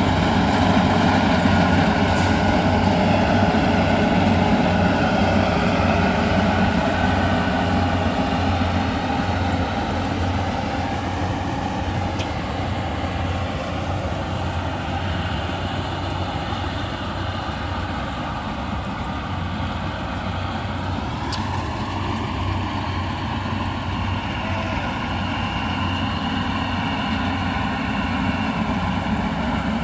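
Yanmar YH850 combine harvester's diesel engine running steadily, its level easing slightly mid-way and building again near the end.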